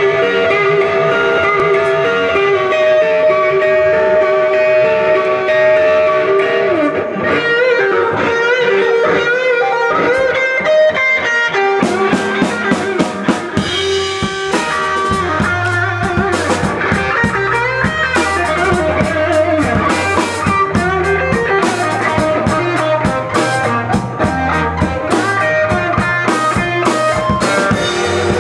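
Live rock band: a guitar plays alone for the first dozen seconds. Then the drum kit and a low bass line come in and the full band plays on.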